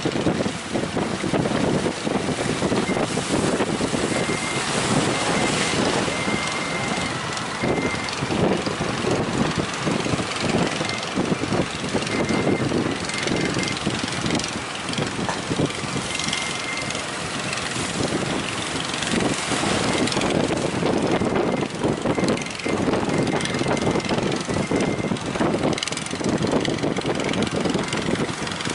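Strong, gusty wind buffeting the microphone, a dense rushing noise that swells and dips unevenly, with a faint high whine coming and going.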